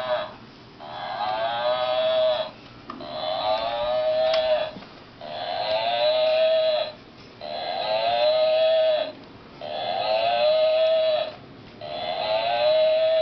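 Electronic toy cow playing a recorded moo over and over, about one call every two seconds. Each moo is high-pitched and bends slightly, lasting a little under two seconds.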